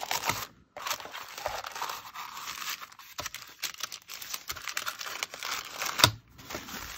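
Paper rustling and crinkling as sheets of brown kraft paper and thin white crinkly paper are handled and slid about on a desk, with a sharper tap about six seconds in.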